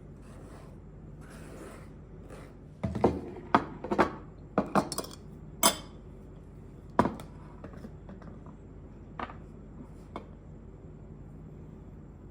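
Dishes and cooking utensils clinking and knocking: a quick run of sharp clinks and knocks a few seconds in, then two lighter clinks near the end.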